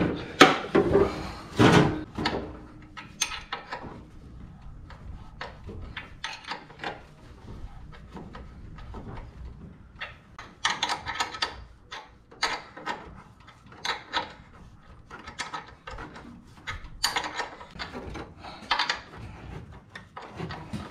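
Hand tools at work on the metal coolant fittings of an LS V8 engine: irregular clicks and scrapes, busiest about ten and seventeen seconds in.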